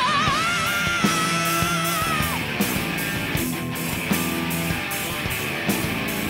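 Rock band playing live: electric guitars, bass and drums, with a steady cymbal pulse. A long high note with vibrato is held through the first couple of seconds and slides down at its end.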